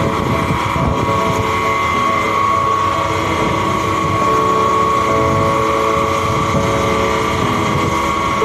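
Engines of a canal mooring launch running alongside a ship, a steady drone with a sustained hum, over water rushing against its hull.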